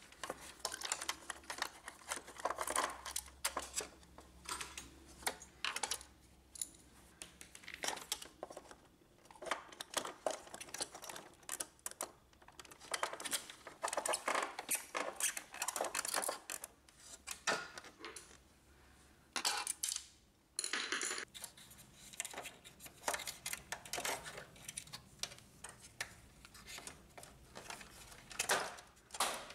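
Screwdriver clicking and scraping on screws and on the metal frame and plastic parts of an Epson WorkForce inkjet printer being taken apart, with scattered light taps and rattles of parts being handled.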